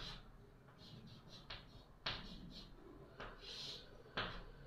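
Chalk writing on a chalkboard: faint short taps and scratches, a stroke every half second or so, with one longer scratch about three and a half seconds in.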